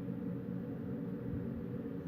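Steady wind blowing, heard as a low, even rumble that holds its level.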